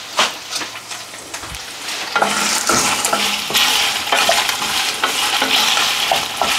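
Kitchen tap turned on about two seconds in, water running steadily into the sink, with light clinks of dishes being rinsed.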